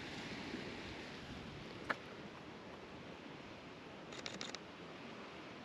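Camera shutter firing: a single click about two seconds in, then a quick burst of five or six clicks about four seconds in, over faint steady hiss.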